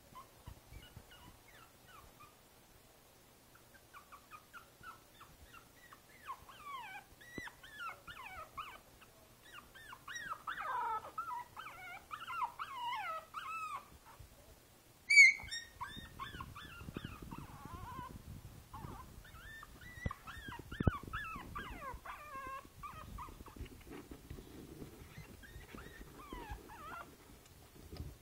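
A five-week-old Boston Terrier puppy whimpering and whining in a long string of short, high, wavering cries, with one sharp, much louder yelp about halfway through. From then on there is scraping and rustling as it scrabbles up the side of a plastic laundry basket.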